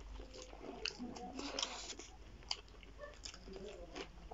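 Close-up chewing and biting of food, with irregular sharp crunches and wet mouth clicks.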